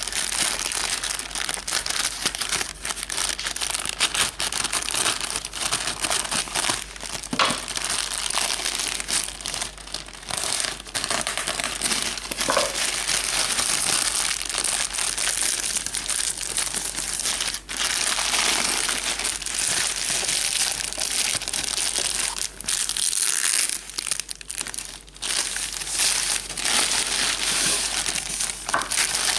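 Parcel packaging crinkling and rustling continuously as it is handled and torn open, with a few sharper crackles and brief pauses.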